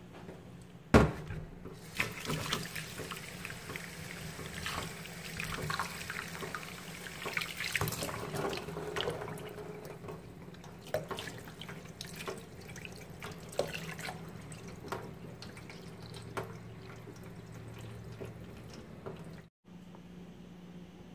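Kitchen tap running into a plastic bowl of blueberries in a stainless steel sink, with water splashing and small clicks and taps as the berries are rinsed. A sharp knock comes about a second in. The water sound stops near the end, leaving a quieter stretch.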